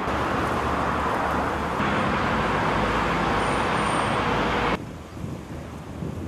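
Steady rushing outdoor noise, like road traffic, that drops abruptly to a quieter level about three-quarters of the way in.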